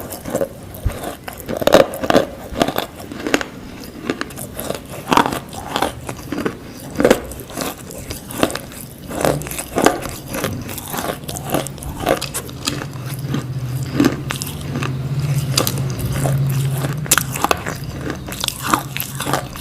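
Close-up biting and chewing of roasted Nakumatt crunch, a hard, brittle food, giving repeated sharp crunches at an uneven pace. A low steady hum comes in about halfway through and fades out near the end.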